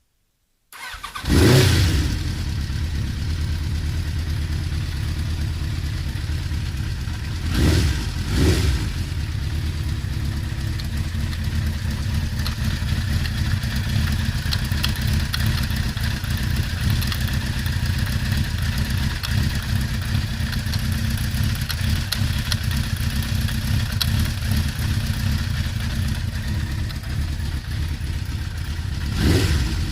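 Kawasaki GPZ900R's inline-four engine starting about a second in and settling into a steady idle, blipped twice around the eight-second mark and again near the end. At nearly 50,000 km this engine gives an occasional clatter that the owner cannot place.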